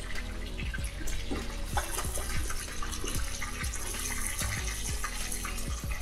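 Pieces of pork entrecôte deep-frying in sunflower oil in a kazan: a steady sizzle with scattered small pops as the oil spits, growing brighter about two seconds in.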